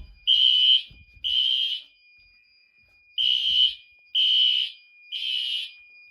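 Fire alarm horns sounding the temporal-three evacuation pattern: three harsh half-second blasts, a pause of about a second and a half, then three more, over a faint steady high tone. The system is in alarm because a pull station popped open.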